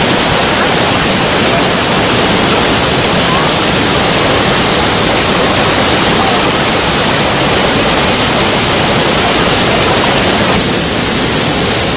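Loud, steady rush of falling water from a waterfall, an even noise with no break. It drops slightly and loses its highest hiss near the end.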